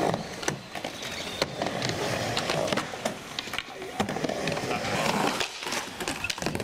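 Skateboard rolling on a half-pipe ramp: a continuous wheel rumble broken by several sharp clacks of the board and trucks.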